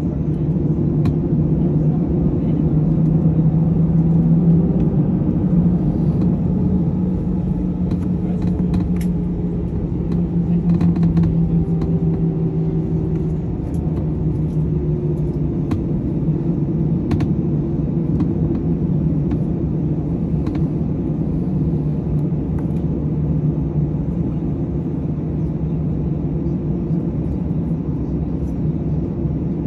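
Airbus A321 cabin noise by the wing: a steady rumble of jet engines and wheels that swells a few seconds in and again about ten seconds later, then settles lower as the aircraft slows from runway speed to a taxi. Short knocks come through now and then.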